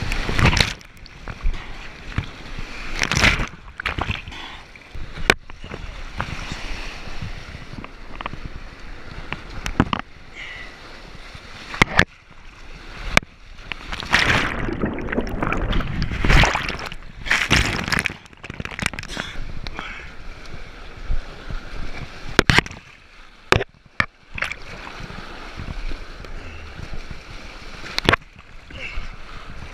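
White water rushing and splashing around a kayak running rapids, with waves breaking over the deck and washing over the microphone. The noise surges irregularly, loudest in the middle, with sharp knocks and brief cut-outs as water hits and covers the mic.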